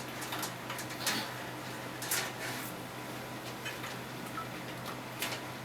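A few light clicks and rustles of fan cables being handled and pulled through a PC case, over a steady low hum.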